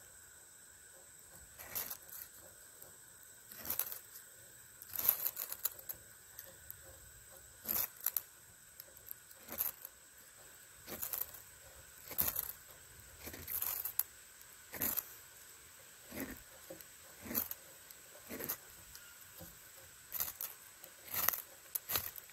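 Ferro rod struck again and again with a scraper to throw sparks onto birch bark, short sharp scrapes about one a second; the bark is not catching.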